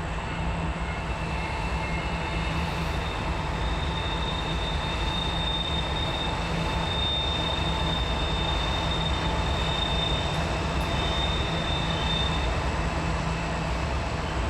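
Long Norfolk Southern coal train running on a sharp curve, diesel locomotives and cars giving a steady low rumble. A thin high wheel squeal starts about two seconds in and fades out near the end.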